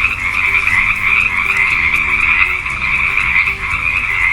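Frogs croaking in a dense, unbroken chorus.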